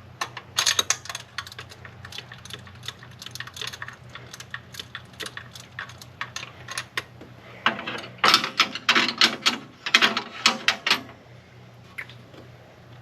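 Hand ratchet wrench clicking in quick irregular runs of strokes as a bolt is worked. The loudest, densest run comes in the last third, and the clicking stops about two seconds before the end.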